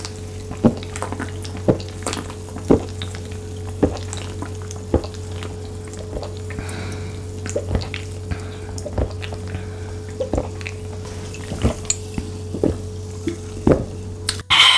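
A person gulping cola from a can, one swallow about every second, over a steady low hum.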